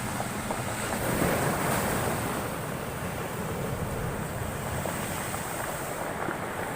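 Heavy storm surf breaking and washing ashore, with wind buffeting the microphone; the sound swells a little after a second in.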